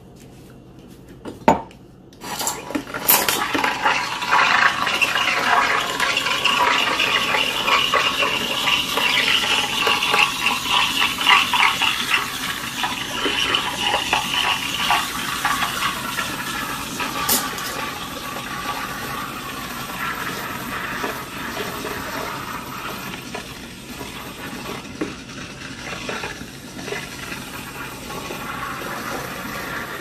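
SOWTECH CM6811 steam espresso machine sputtering and gurgling with steam and hot water. A click comes first, the sputtering starts about two seconds in, is loudest in the first half and eases off toward the end.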